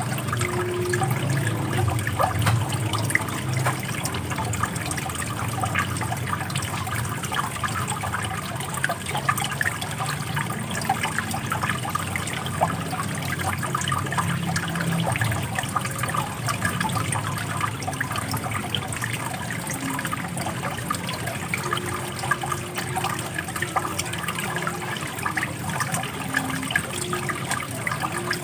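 Running water, a steady splashing and trickling flow.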